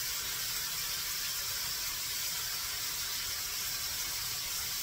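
Ground-beef burgers frying in a skillet on a gas stove: a steady sizzling hiss.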